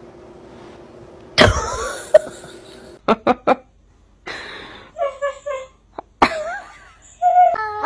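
A sudden loud cry about a second and a half in. Then a woman gives a few short bursts of laughter, and a Siberian husky answers with a string of short pitched yips and a wavering howl that mimic her laugh.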